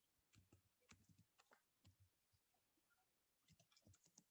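Near silence, with a few faint, scattered clicks of computer keyboard typing.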